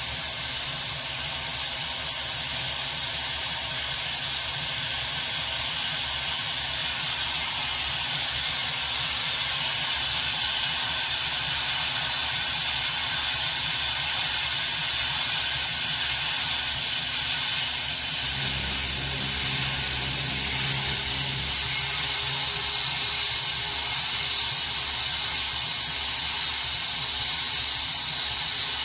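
Coolant mist spraying with a steady hiss over the spindle and end mill cutting a round pocket in aluminium on a CNC-converted Grizzly G0704 milling machine. A low hum comes in briefly about two-thirds of the way through.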